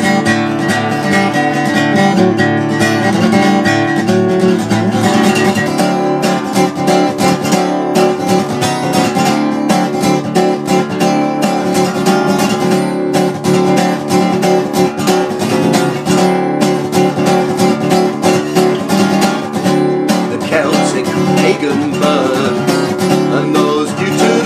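Acoustic guitar strummed steadily and briskly, chords ringing on with no singing.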